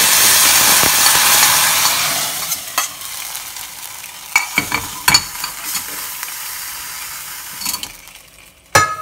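Hot oil tempering of mustard seeds and dried red chillies sizzling loudly as it meets the curry; the sizzle dies away over the first two to three seconds. After that a steel ladle scrapes and clinks a few times against the small steel pan.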